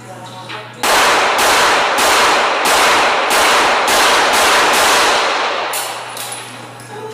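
Rapid gunfire: a long run of shots at about two a second that starts suddenly about a second in and fades away after about five seconds.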